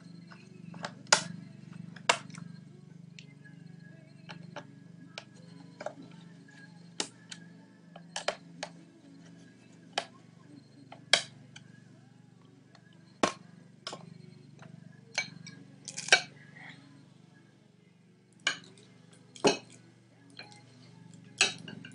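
Scattered sharp clicks and clinks, about twenty at irregular intervals, as a screwdriver works the screws out of the underside of an HP G61 laptop and the tool and screws knock against it. A low steady hum runs underneath.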